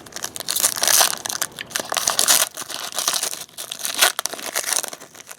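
Plastic trading-card pack wrapper crinkling and tearing as a pack of football cards is ripped open: a dense run of sharp crackles that stops abruptly at the end.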